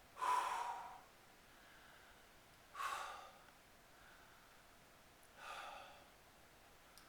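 A man hiccuping three times, about two and a half seconds apart: each a sudden short catch in the throat with a brief vocal sound, the first the loudest.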